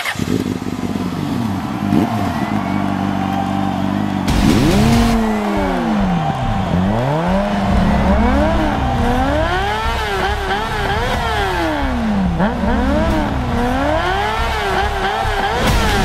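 Motorcycle engine revving, its pitch climbing and dropping again and again every second or two, with a short loud burst of noise about four seconds in and another near the end.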